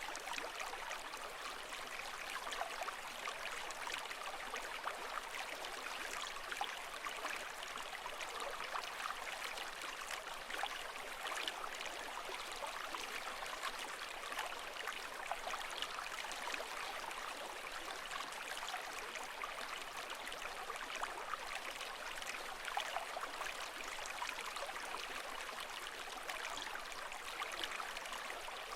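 Steady, continuous water sound with a fine trickling, bubbling texture; the level stays even, without the rise and fall of breaking waves.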